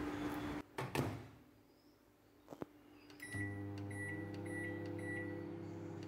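Microwave oven running with a steady electrical hum, broken by a quiet stretch with a couple of clicks. The hum starts again about three seconds in, with a string of short high beeps about twice a second.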